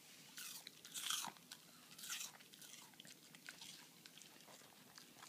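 A pet crunching and chewing a piece of apple: three loud crunching bites in the first two and a half seconds, then quieter, quick chewing clicks.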